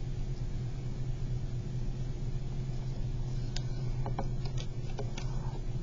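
Steady low hum. About three and a half seconds in come a few short crackles and taps of origami paper being handled and creased flat by hand.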